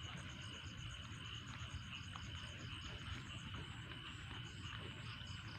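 Insects trilling: a steady high buzz with a rapid, evenly pulsing chirp above it, over a faint low rumble.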